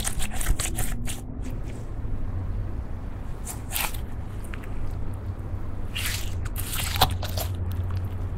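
Clear slime coloured with mixed-in eyeshadow being squeezed and kneaded by hand, squishing in irregular short bursts, with one sharp pop about seven seconds in. A steady low hum runs underneath.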